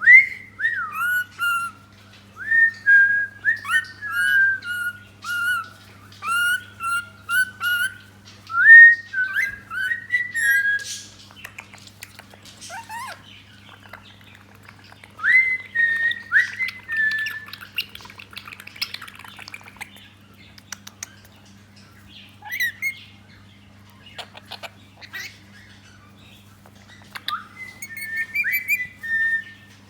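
Rainbow lorikeet calling: a quick run of short, shrill chirps that slide in pitch, then scattered groups of calls with pauses between. A faint steady hum lies underneath.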